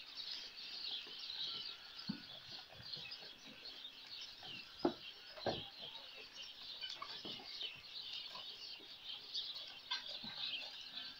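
Small birds chirping continuously, with a few short knocks and rustles from goats moving in the straw and at the hay rack, the sharpest about five seconds in.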